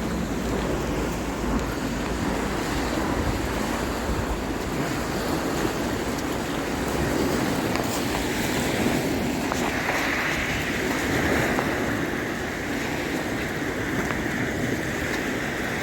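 Puget Sound waves washing on the shore, with wind buffeting the microphone. A steady higher hiss joins from about eight seconds in.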